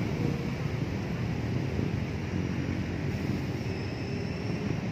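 Steady low rumble and hiss of outdoor city background noise, with no single event standing out.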